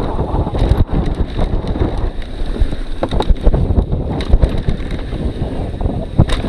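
Heavy wind buffeting on a moving camera's microphone during a fast descent, a constant low rush broken by frequent short knocks and rattles from the rough ride.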